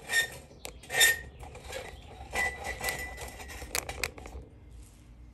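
Metal clinks and knocks, several of them leaving a short ringing tone, as a Chevrolet-style tilt steering column is handled and shifted on the bench. The knocks fade out about a second before the end.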